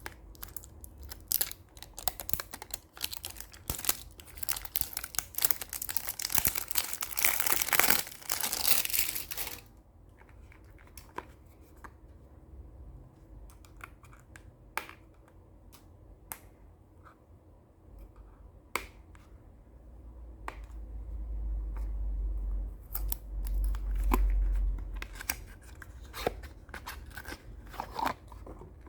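Packaging being handled and torn open: dense crinkling and tearing for about the first ten seconds, then scattered clicks and taps. About two-thirds of the way through comes a low rumble lasting several seconds.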